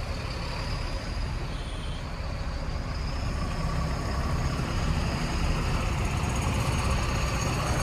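Truck's diesel engine running with a steady low rumble that grows gradually louder.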